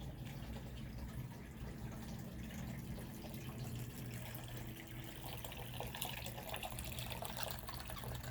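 Faint trickling water over a steady low hum, with light scattered ticks in the second half.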